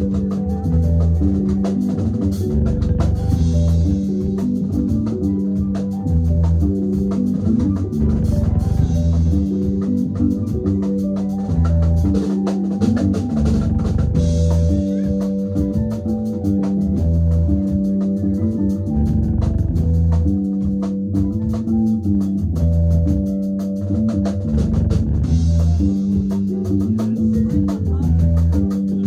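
Loud dance music with a repeating heavy bassline and a steady drum beat.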